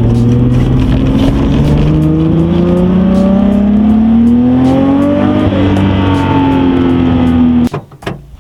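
Nissan Skyline R32 GT-R's RB26 twin-turbo straight-six pulling under acceleration, its pitch rising slowly for about five seconds, then levelling off and holding. The sound cuts off suddenly near the end.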